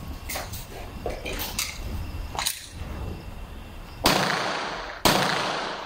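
Two gunshots about a second apart near the end, each followed by a long echoing tail. Before them, only faint clicks and knocks.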